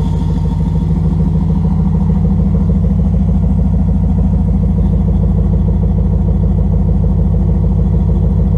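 Turbocharged 5.2-litre Magnum V8 of a Dodge Ram idling steadily through its newly built dual-tip exhaust, warming up on one of its first runs.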